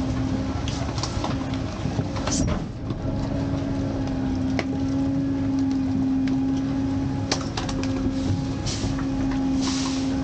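McNeilus rear-loader packer running through its cycle: a steady hydraulic whine under the truck's engine rumble, broken briefly about two seconds in, with scattered metallic knocks and clicks from the moving packer panel and the trash in the hopper.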